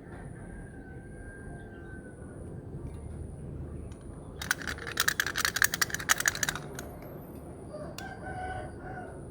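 Small plastic beads or charms poured into a plastic bucket: a dense rattling clatter of rapid clicks lasting about two seconds in the middle. A rooster crows in the background near the end, over a steady outdoor morning ambience.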